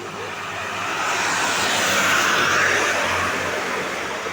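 A large road vehicle, likely a tour bus, passing close by: its engine and tyre noise swells to a peak about two seconds in, then fades away.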